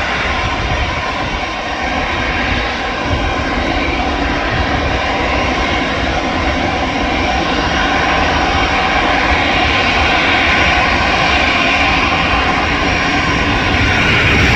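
Airliner engines running loud and steady, slowly growing louder, with a faint steady whine and gently sliding tones within the roar.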